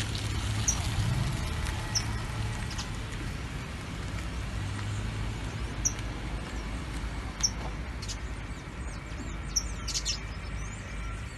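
Birds giving short high chirps every second or two, over a steady low rumble.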